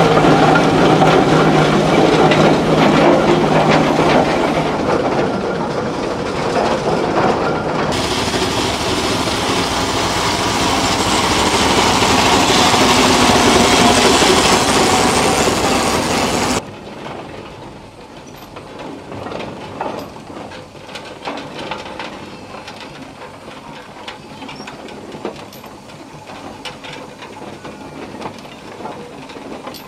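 Antique steam engines running, heard in three cuts. First a Rumely steam traction engine running loudly with steam hiss; about eight seconds in it changes abruptly to a vertical-boiler steam engine, also loud; a little past halfway the sound drops suddenly to a red steam traction engine running much more quietly, with light irregular clicks.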